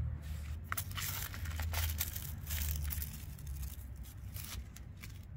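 A cat's claws scratching and raking a coir doormat: a run of scratchy rasps starting about a second in, over a steady low rumble.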